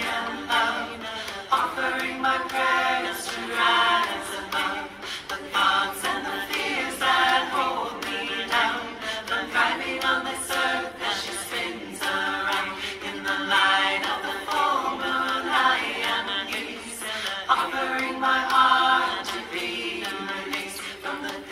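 A cappella singing: layered voices carry a slow melody in harmony without instruments, continuing the full-moon prayer song.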